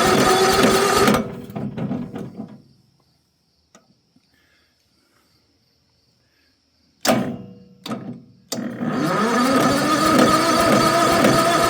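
A small engine being spun over by its electric starter without catching: one cranking run ends about a second in and winds down, then after a few short bursts a second cranking run starts about three quarters of the way in. The starter battery is starting to die.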